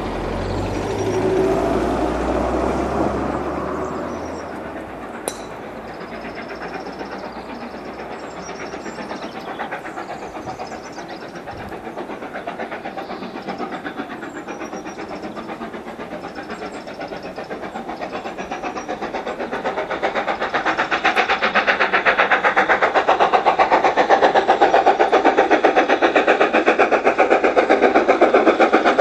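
BR Standard Class 4 4-6-0 steam locomotive No. 75014 hauling a train towards the listener, its rapid exhaust beats growing steadily louder through the second half. Wind gusts on the microphone at first.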